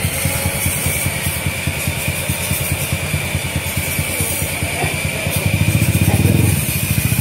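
Bored-up 177 cc Yamaha Jupiter MX single-cylinder four-stroke engine running on a BRT PE28 carburetor through an aftermarket exhaust, rapid exhaust pulses throughout, revving louder about five to six seconds in as the bike pulls off. Rock music with drums plays over it.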